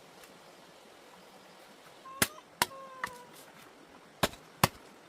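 Chopping: five sharp strokes of a blade, in a rough group of three and then a pair, with a faint drawn-out tone between the first strokes.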